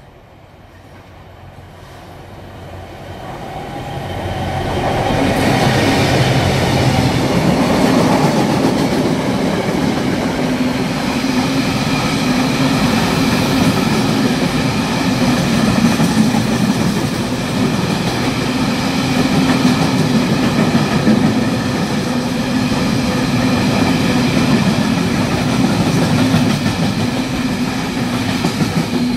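Freight train approaching and running through the station, growing louder over the first five seconds or so. A long, steady noise of wagon wheels on the rails follows as a rake of open box wagons passes close by.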